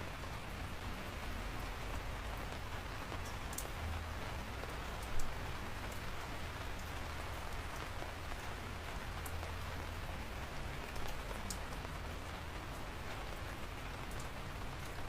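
Steady rain falling, with scattered sharp ticks of individual drops and one louder tap about five seconds in.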